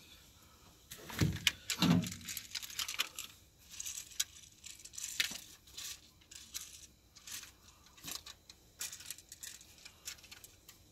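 Gear being handled at a pickup's metal tailgate as an airsoft rifle is picked up: two knocks a little over a second apart near the start, then scattered clicks and rustling.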